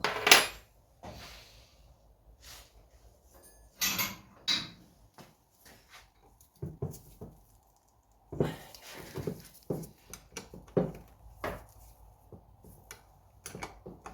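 Metal spanners clinking and clanking as they are sorted through and tried on a bolt: a string of sharp knocks, the loudest at the very start, with quiet gaps between.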